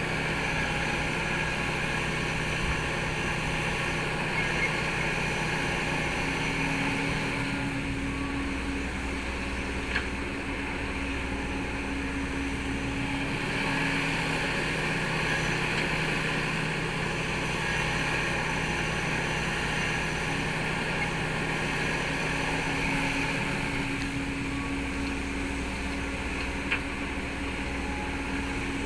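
Heavy earthmoving machinery's engine running steadily with an even hum, with a light click about ten seconds in and another near the end.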